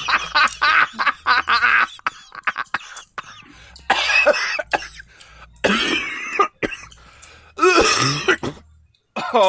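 A person coughing in three separate bouts, about four, six and eight seconds in.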